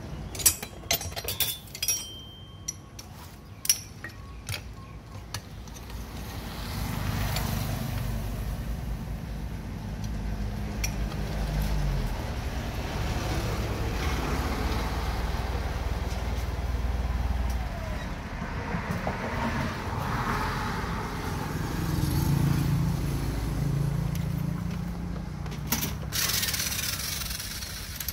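A few sharp clicks and taps, then a low engine rumble that swells and fades for the rest of the time, strongest about eight to eighteen seconds in and again around twenty-two seconds.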